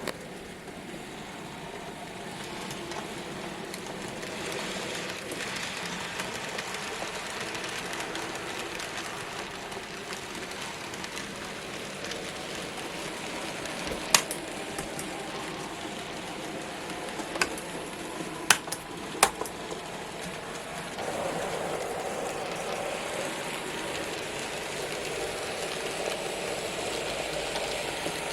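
N gauge model trains running round a layout: a steady whirring rattle of small motors and wheels on track, with a sharp click about halfway through and three more a few seconds later. The running grows louder and fuller from about three quarters of the way in.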